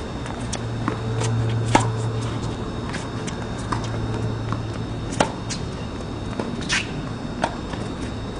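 Tennis rally on a hard court: a string of sharp, irregularly spaced pops from rackets striking the ball and the ball bouncing, over a steady low hum.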